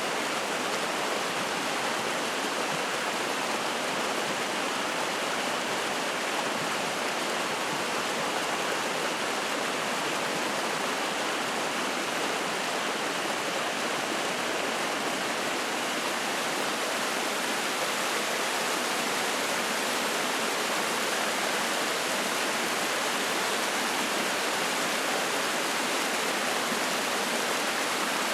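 Spring-fed mountain stream flowing and splashing: a steady, even rush of water.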